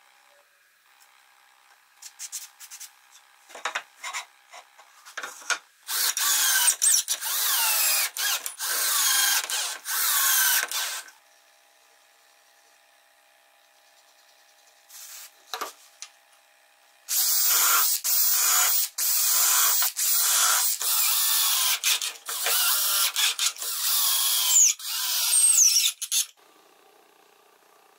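Cordless drill-driver running in two spells of several seconds each, each broken into short bursts as it drives into the wooden board. A few scattered clicks come before the first spell.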